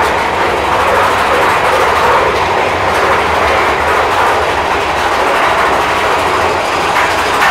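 Big Thunder Mountain Railroad mine-train roller coaster running along its track, heard from on board: a loud, steady rumble and clatter of the train's wheels on the rails.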